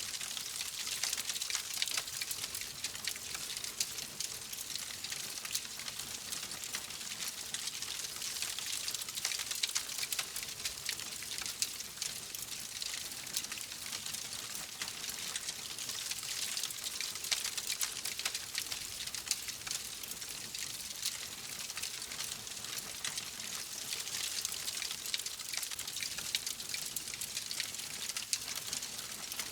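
Wood fire crackling: a dense run of small sharp pops and snaps over a steady hiss.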